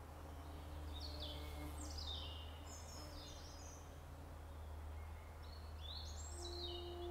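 Songbirds singing: two runs of quick high chirps that step down in pitch, over a steady low background rumble. Near the end a steady, held musical tone comes in.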